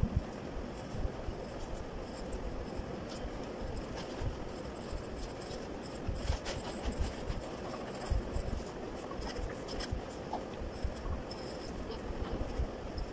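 Graphite pencil scratching on paper in quick, short shading strokes, with frequent low bumps underneath.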